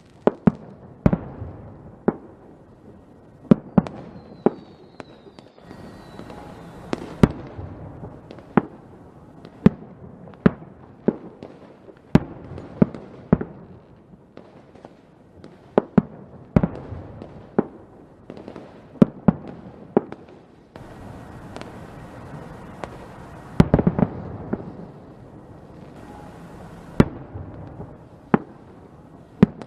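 Fireworks going off: a steady stream of sharp bangs at irregular intervals, some trailed by crackling, with a quick cluster of bangs about three-quarters of the way through.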